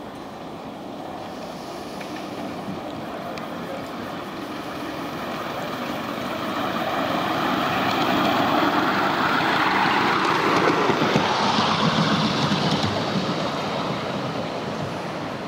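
Miniature steam locomotive running past on its track, a steady noise that builds to its loudest in the middle and late part and then fades as it goes away.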